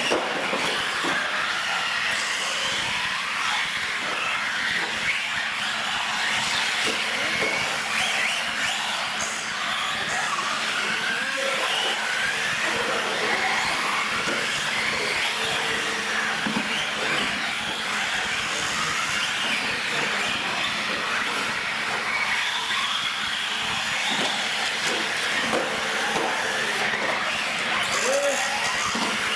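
Several radio-controlled UTV trucks driving at once, their small electric motors whining and gliding up and down in pitch as they speed up and slow down.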